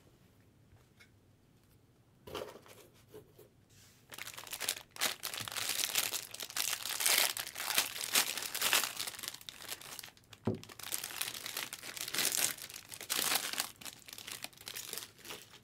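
Foil wrapper of a trading-card pack being torn open and crinkled by hand, starting about four seconds in and going on in a dense crackle, with a short pause and a light knock about ten seconds in.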